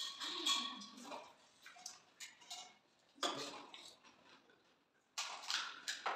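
Pani puri being eaten: crisp hollow puri shells cracked open by hand and crunched in the mouth, with light clinks of steel plates and bowls. The crunching comes in short bursts near the start, about three seconds in, and near the end.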